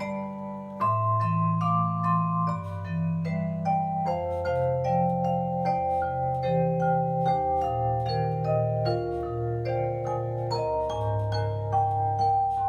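Entry-level digital piano played on one of its built-in sound-effect voices rather than a plain piano tone: a melody of struck notes over held bass notes, a few notes a second.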